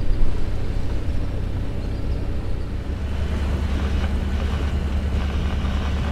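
A sailing yacht's inboard engine running steadily under way, a low even hum, with wind on the microphone and water noise over it.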